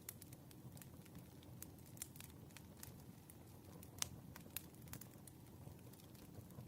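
Wood fire burning, faint: irregular crackles and snaps of burning firewood over a low steady rumble, with one sharper pop about four seconds in.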